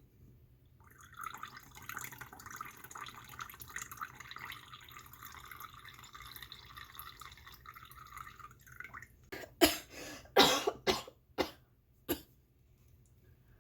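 Liquid pouring or trickling for several seconds, then a person coughing about five times in a quick run, the coughs much louder than the pouring. The cough is the bad cough that the tea is meant to ease.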